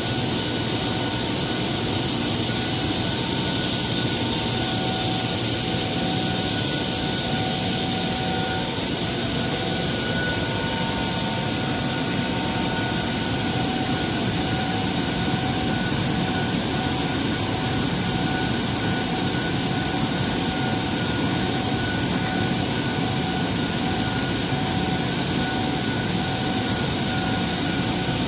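Steady mechanical drone of plant-room machinery on an industrial heat exchanger unit, with a constant high whine and fainter steady tones over an even rushing noise.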